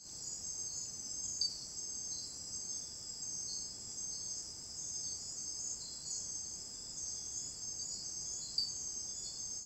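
Night insect chorus in tropical forest: several insects trilling steadily and high-pitched, their calls overlapping in pulses. Two brief sharp clicks stand out, about a second and a half in and near the end.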